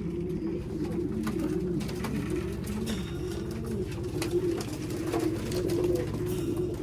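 Racing pigeons cooing together inside a loft, several birds at once in overlapping low, wavering calls.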